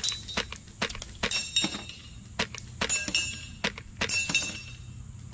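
Rapid single shots from a Polarstar Kythera HPA-powered airsoft rifle, a few sharp pops a second, with BBs striking small metal knock-down targets that clink and ring on several of the hits.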